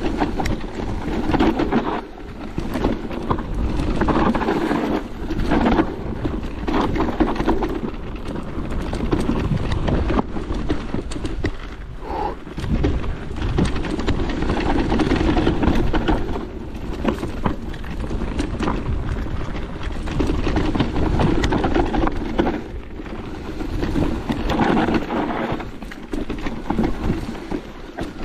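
Merida eOne-Sixty electric mountain bike ridden over rough trail: continuous tyre rumble with frequent knocks and rattles from the bike, and wind buffeting the microphone, rising and falling in surges.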